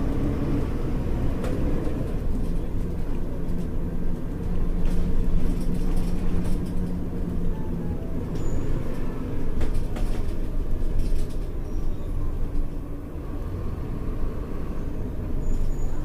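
Mercedes-Benz O-500U city bus engine running with its ZF Ecomat automatic transmission, a steady low drone with a held hum from about two to eight seconds in and a few light clicks.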